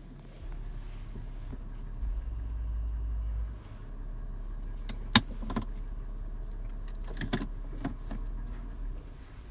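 FJ engine idling warm with a low steady rumble, which swells for about a second and a half starting two seconds in. A few sharp, irregular clicks and knocks come between about five and eight seconds in. The owner is chasing a loud metallic tapping or knocking at warm idle.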